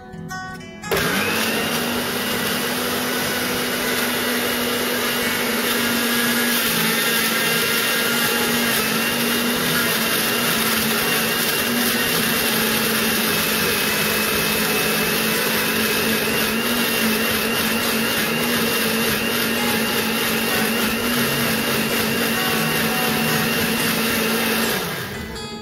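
Panasonic countertop blender switched on, its motor spinning up about a second in and then running steadily as it grinds onions and dried chillies into a paste. It winds down and stops near the end.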